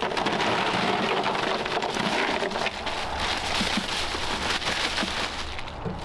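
Bagged ice cubes poured into a plastic picnic cooler: a dense clattering rattle of cubes tumbling against the plastic and each other.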